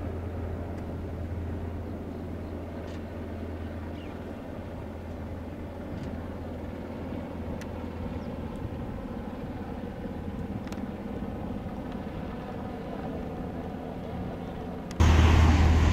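Steady low drone of a distant engine, with a few faint ticks. About fifteen seconds in it gives way abruptly to much louder noise.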